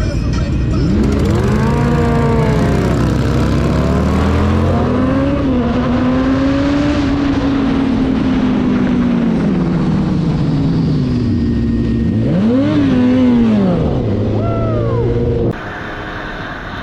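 Suzuki GSX-S1000's inline-four engine pulling away from a stop and revving up through the gears, its pitch rising and falling with each change, with a quick rise and fall in revs about three-quarters through. Near the end the sound switches abruptly to another motorcycle's quieter ride.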